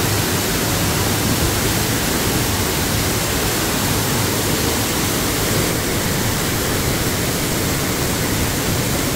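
Waterfall pouring into a plunge pool close by: a loud, steady, even rush of falling water.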